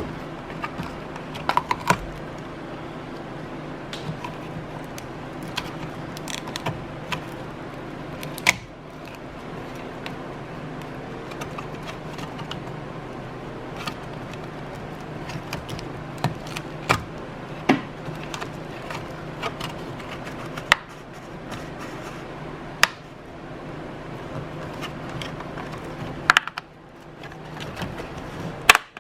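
Scattered clicks, taps and rattles of hand tools and small parts as an aftermarket oil pressure gauge and its wiring are worked loose from a car dashboard, over a steady low hum that stops near the end.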